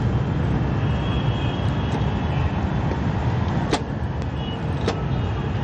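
Steady low background rumble, with two sharp clicks about a second apart near the middle: a knife striking the cutting board while scoring chicken drumsticks.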